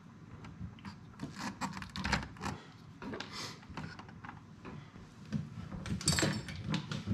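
Small irregular clicks and rattles of wires and crimp connectors being handled and pushed onto terminals inside a jump box's plastic case, busier near the end.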